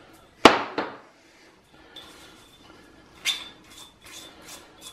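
Ceramic pestle knocking twice against a ceramic mortar, followed by lighter clinks and scraping as the crushed rosemary and garlic paste is tipped and scraped out of the mortar.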